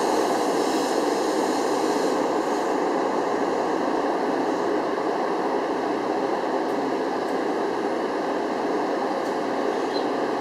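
Metro-North M8 electric multiple-unit train standing at a station platform, giving off a steady, even noise from its equipment that slowly gets a little quieter.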